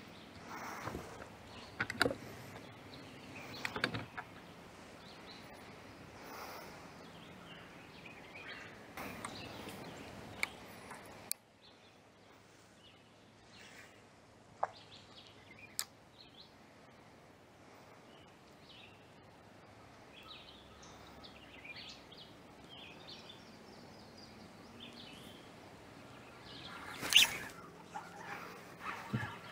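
Outdoor ambience with birds chirping, broken by scattered sharp clicks and knocks; the background turns quieter about a third of the way in, and a louder noisy burst comes near the end.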